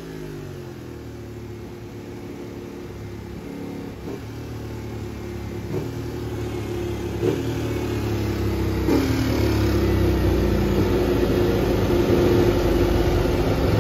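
Ducati Panigale V4R's 999cc V4 engine idling on the dyno through its titanium Akrapovic exhaust, a steady low tone that grows louder over the second half, with a few light knocks.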